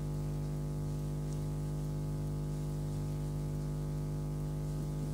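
Steady electrical hum: a constant buzz of many evenly spaced tones over faint hiss, unchanged in level.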